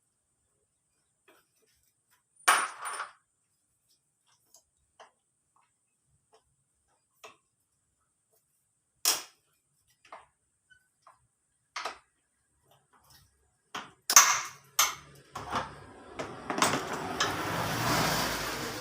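Scattered knocks and clinks of metal tools and engine parts being handled during scooter engine disassembly, with a denser rattling clatter over the last few seconds.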